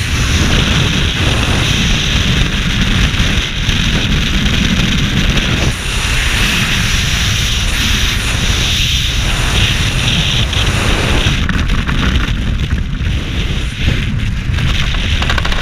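Freefall wind buffeting a skydiver's helmet-mounted camera microphone: loud, steady rushing wind noise.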